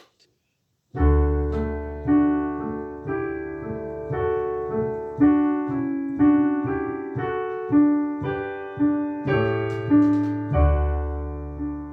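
Piano-sounding keyboard playing a short melodic phrase, starting about a second in: a string of struck single notes, each fading after it is hit, over low bass notes, ending on a held low chord.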